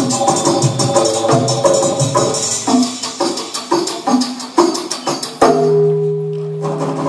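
Dance music with a steady percussive beat of struck, pitched notes about three a second; about five seconds in, a sharp hit gives way to long held notes.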